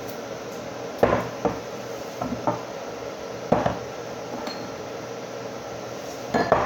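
Glass jars and a bottle being set down on a countertop: a few sharp clinks and knocks, about a second in, again between two and three and a half seconds in, and a quick pair near the end.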